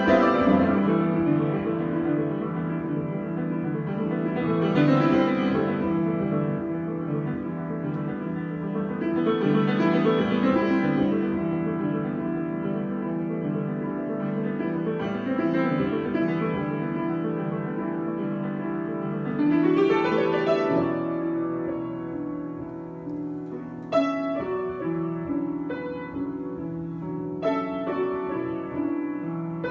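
Solo piano improvisation: dense sustained chords that swell and fade several times, then turn to sharper, separately struck chords about 24 seconds in.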